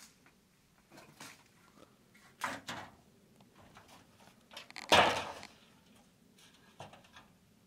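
A few short scraping and knocking noises, the loudest a brief harsh scrape about five seconds in.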